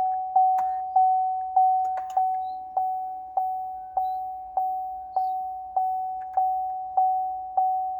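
Chevrolet Suburban's electronic warning chime dinging over and over, one soft bell-like ding about every 0.6 s at a single pitch, with a few faint clicks among the dings.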